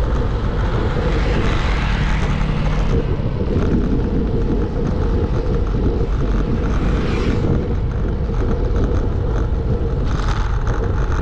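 Wind rushing over the camera microphone on a moving road bike, a steady loud deep rush, with the bike's tyres rolling on asphalt.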